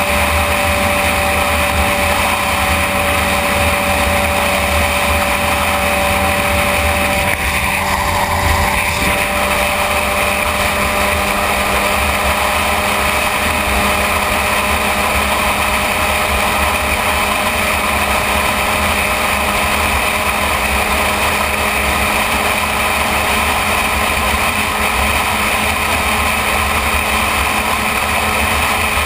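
Sport motorcycle engine running at a steady cruise with the rush of riding at speed, its note shifting briefly about eight seconds in.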